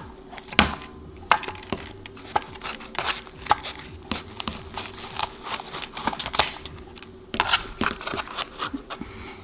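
A Furby toy being cut apart, a run of irregular snips, clicks and crinkles as the blade works through its fur and inner parts, which are very hard to cut. A faint steady hum runs underneath.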